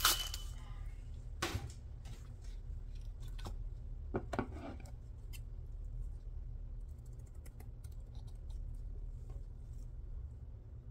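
Paper and craft supplies being handled on a table: irregular rustles and light clicks, loudest near the start and around four to five seconds in, over a steady low hum.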